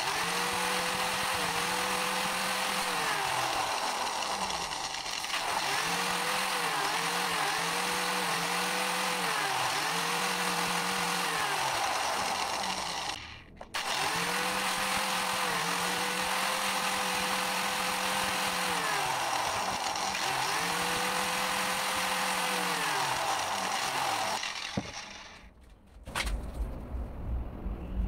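Angle grinder running with an abrasive disc as a small steel block is ground against it, throwing sparks. The motor note dips several times, and the sound breaks off briefly about halfway through, then stops near the end.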